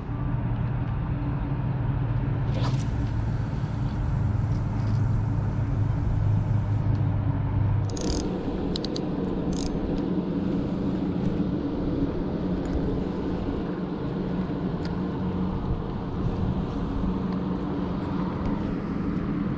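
Steady low engine drone with a few clicks about eight seconds in, where the drone shifts to a higher pitch.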